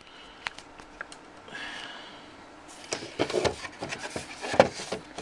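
Handling noise: a few light clicks, then from about three seconds in, hands rubbing and knocking on the hard plastic collector's-edition cowl box, with one sharper knock near the end.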